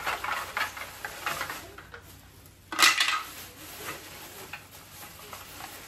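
Thin black plastic bag rustling and crinkling as it is handled and folded, with a louder crackle about three seconds in.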